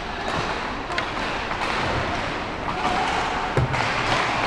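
Ice hockey rink noise during play: a steady hiss of skates on ice with scattered clicks and knocks of sticks and pucks, the sharpest knock about three and a half seconds in.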